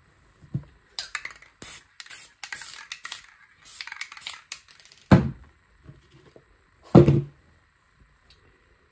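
Aerosol spray paint can hissing in a series of short bursts, then two loud knocks as the round pan used as a stencil mask is lifted off the board and set down.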